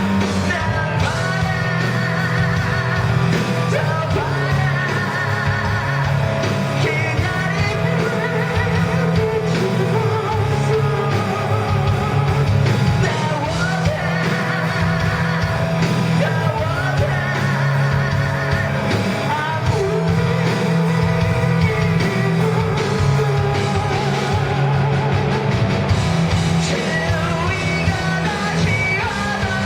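Live rock band playing a song, with a singer holding long, wavering notes over electric guitar, bass and drums.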